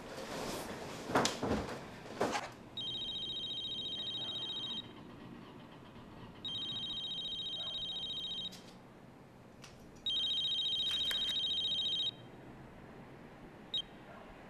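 A flip mobile phone rings three times, each ring a high electronic trill lasting about two seconds. Before the first ring there are a few short rustles and knocks, and near the end there is a single click as the phone is flipped open.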